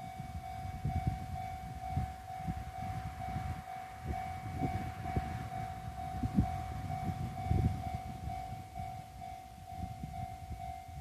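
Level crossing alarm ringing in steady, even pulses of one tone, over the low, uneven rumble and knocks of the Sunrise Express, a 285-series electric sleeper train, passing through the crossing slowly.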